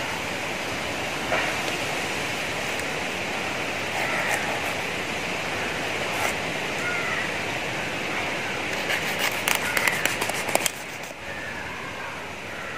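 A kitchen knife scraping scales and grime off the skin of a large tuna, a steady rasping hiss, with a cluster of quick, sharper scrapes about nine to ten and a half seconds in, after which the sound drops quieter.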